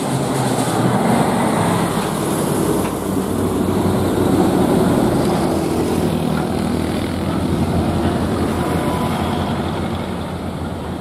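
Heavy diesel lowbed truck hauling a crawler crane driving past: engine and tyre noise that builds to its loudest about halfway through as the trailer goes by, then fades as the truck pulls away.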